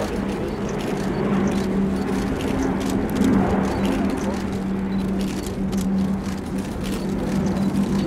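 Airbus A400M's four turboprop engines with eight-bladed propellers running through a banking display pass overhead: a steady, low propeller drone with a constant pitch.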